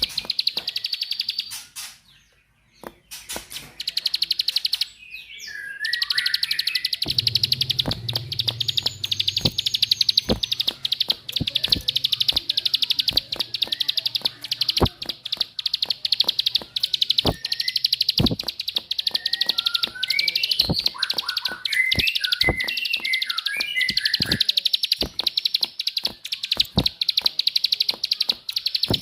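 A rapid, dense clicking trill of a small bird, the 'klik klik' call used as a lure for prinias. It drops out briefly a few seconds in, then runs on, with short lower chirps from other birds about a fifth of the way in and again past the two-thirds mark.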